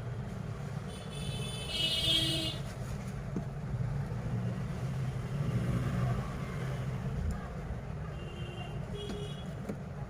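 Steady low rumble of road traffic. A short high-pitched tone sounds about a second in, and two briefer ones come near the end.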